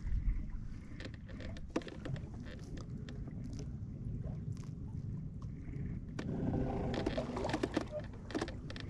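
Water splashing and lapping as someone moves through shallow water beside the hull, with scattered small splashes, busier about two thirds of the way in, over a low wind rumble on the microphone.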